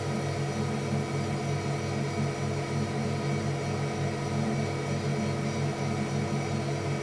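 A steady low droning hum that throbs a few times a second, with several steady higher tones held above it.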